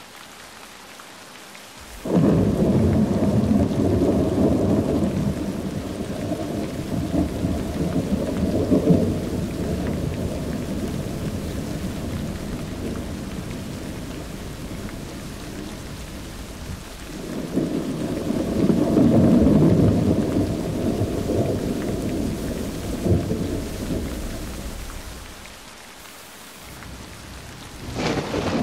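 Thunder rolling: a deep rumble starts suddenly about two seconds in and fades slowly over some fifteen seconds. A second rumble swells up past the middle and dies away, and a third begins near the end.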